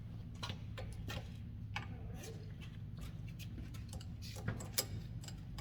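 Scattered light clicks and taps, about half a dozen at uneven intervals, over a steady low hum.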